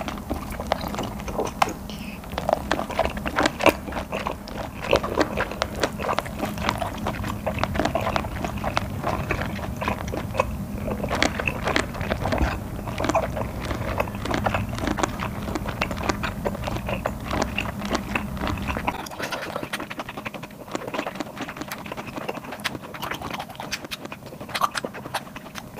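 Close-miked chewing of boiled whole octopus: a long run of short, wet biting and chewing clicks with no pauses.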